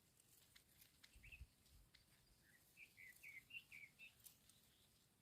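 Faint bird chirping: a quick run of about eight short chirps, starting about a second in and stopping around four seconds in.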